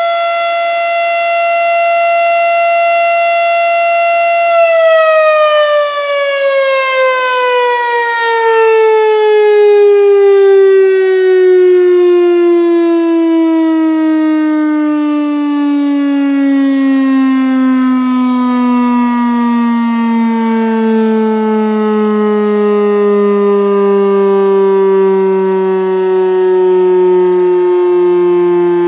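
Federal Signal STH-10 mechanical warning siren holds a high tone, then after about four and a half seconds its pitch slides slowly and steadily downward as the rotor winds down. The falling tone pulses faintly about once a second.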